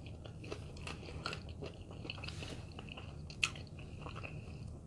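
A person chewing a bite of a crispy fried chicken sandwich: faint wet mouth sounds and small crunches, with one sharper click about three and a half seconds in.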